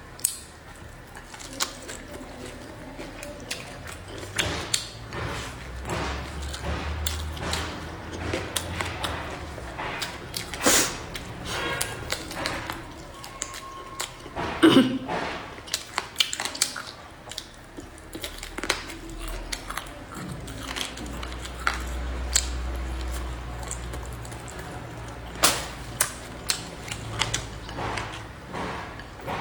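A person eating a meal: irregular clicks and taps of chopsticks against bowls and plates, with chewing, and a louder knock about halfway through.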